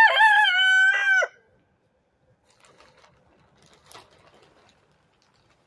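A rooster crowing once, a loud drawn-out crow that ends about a second in. Afterwards, faint rustling as black plastic sheeting is pulled off a raised garden bed.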